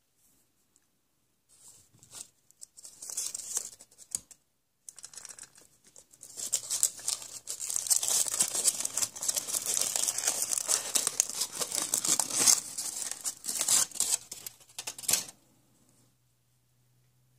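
A wrapper crinkling and tearing: scattered crackles at first, then dense, continuous crinkling from about six seconds in that stops sharply near the end.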